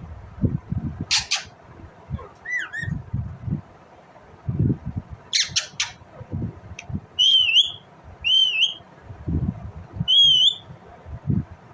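Indian Ringneck parakeet calling: two harsh screeches, one about a second in and a quick cluster midway, and four clear whistled calls that dip and then rise in pitch, the last three higher and louder, near the end. Low muffled rumbles and knocks sound underneath between the calls.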